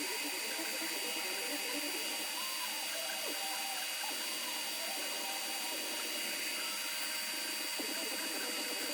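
Creality Ender 3 V2 3D printer running a print: its stepper motors whir in shifting, wavering pitches as the print head moves, over a steady high whine.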